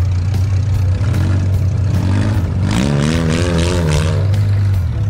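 Stock compact demolition derby car engines running with a steady low drone, one revving up and down in quick wavering surges from about a second in, loudest and rattliest near the middle as the car pulls away.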